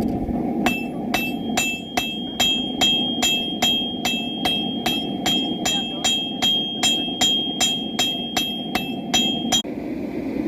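Blacksmith's hammer striking steel on an anvil in a steady rhythm of a little over two blows a second, each blow ringing. The hammering stops abruptly near the end.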